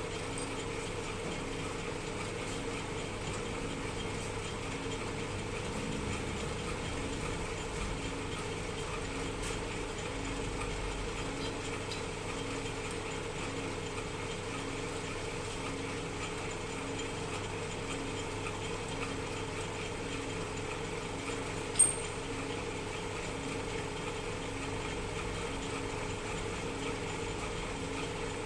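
Metal lathe running steadily: a constant mechanical hum with a faint pulse about once a second. One sharp click about three-quarters of the way through.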